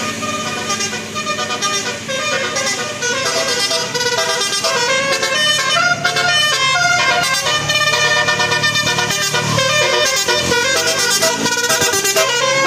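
Bus 'telolet' multi-tone horn of the Basuri type playing a quick melody of stepped, trumpet-like notes.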